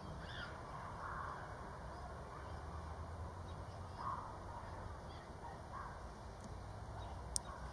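Faint outdoor ambience: a few brief, scattered distant bird calls over a low steady rumble, with one sharp click near the end.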